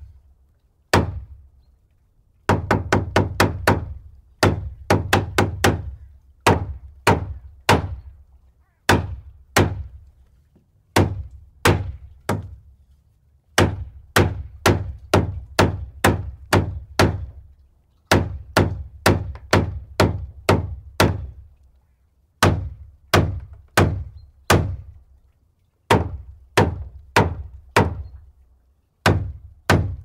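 Hammer blows: sharp, repeated strikes, each with a deep thud that dies away quickly, in runs of two to seven hits with short pauses between runs.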